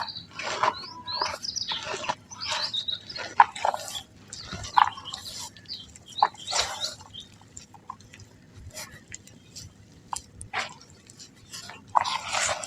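Soft dry mud crumbling, a run of irregular crunchy, crackling bursts, busier in the first few seconds and again near the end.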